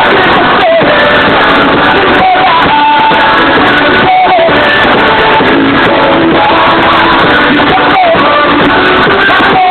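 Loud music with a singing voice, played through a car sound system.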